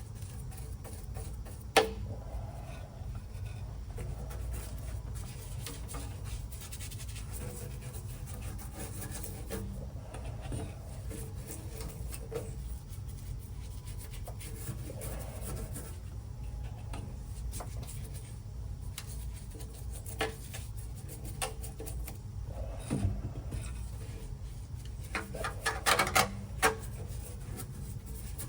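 Light rubbing and scraping as rust-dissolver gel is worked onto a car's steel floor pan, over a steady low background rumble. A sharp knock comes about two seconds in, and a cluster of clattering knocks near the end.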